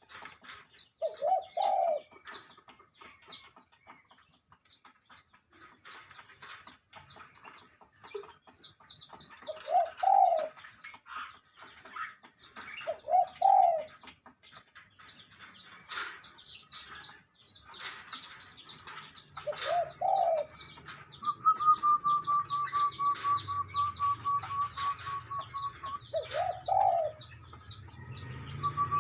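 A flock of birds calling, with fast, high repeated chirps throughout and a lower rising call every few seconds. A steady trill comes in about two-thirds of the way through, sharp clicks are scattered throughout, and a low rumble builds near the end.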